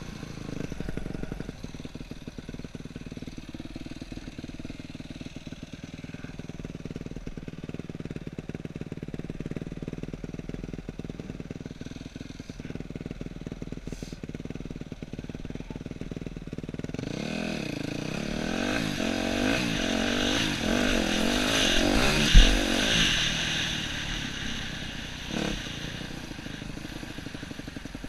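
Yamaha YZ250F dirt bike's single-cylinder four-stroke engine running at low revs, then revving up and down as the bike pulls away and accelerates, heard from the rider's helmet. A hard thump rings out about two-thirds of the way through, while the engine is at its loudest.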